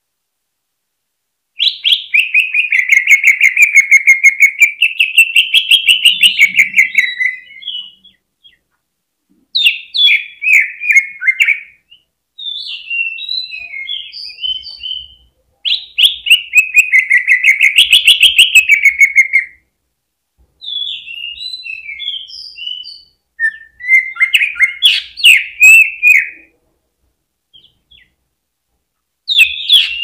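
Greater green leafbird (cucak ijo) singing. It gives long phrases of rapid trilled notes that waver up and down in pitch, alternating with shorter jumbled chattering phrases, with brief pauses between.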